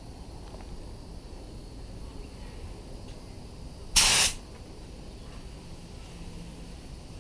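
Gravity-feed paint spray gun fired once in a short burst of air hiss, about four seconds in, lasting about a third of a second. It is misting 2K reducer over the edge of fresh clear coat to melt it into the old clear.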